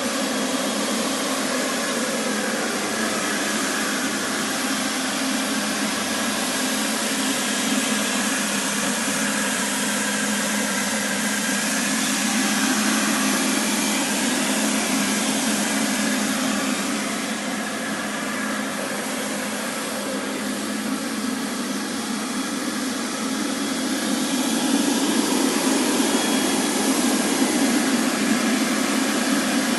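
Motor of a commercial roller-type wet floor scrubber running steadily, a continuous whirring hum with brushing noise, getting a little louder near the end.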